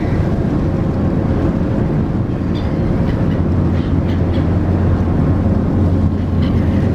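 Car ferry under way: a steady low engine drone with wind and water rushing along the hull. A few faint, short gull calls come through in the middle and near the end.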